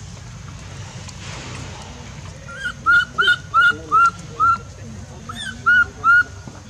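Newborn macaque crying: a string of about eight short, high, arched calls, a quick run of five starting about halfway through and a few more near the end.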